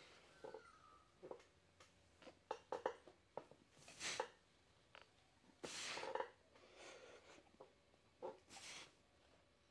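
A lifter's breathing during a set of incline dumbbell presses: three sharp, hissing exhalations about two seconds apart, with faint small clicks between them.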